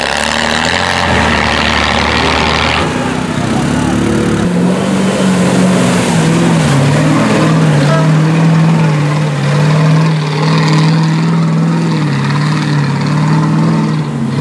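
Off-road vehicle engine working hard in deep mud, a steady droning note that sets in about four seconds in and wavers slightly with the throttle.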